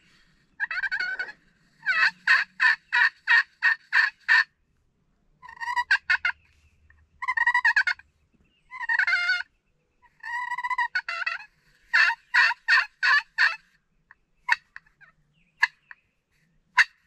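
Turkey pot call scratched with a wooden striker, imitating hen turkey calls. It makes runs of quick yelps with a few longer drawn-out notes between them, then single sharp clucks near the end.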